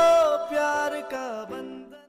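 Closing bars of a Hindi film song: a long held note stops about a third of a second in, followed by a few short notes that fade out.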